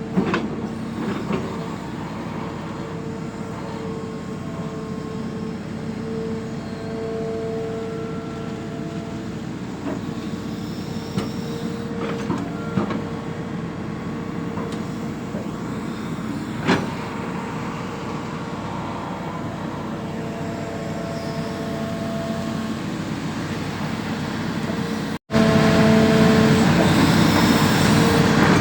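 Excavator's diesel engine and hydraulics running steadily, with a few held whining tones and occasional metallic knocks. The sound cuts out briefly about 25 seconds in and comes back louder.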